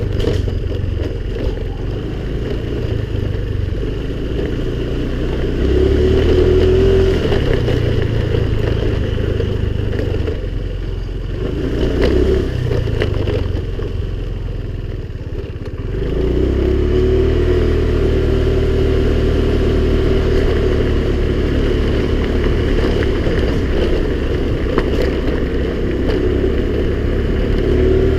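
Honda scooter engine running while being ridden, its steady note easing off for a few seconds around the middle, then rising again as it picks up speed.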